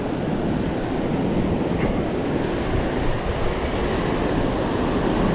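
Steady noise of ocean surf breaking on a beach, with wind buffeting the microphone.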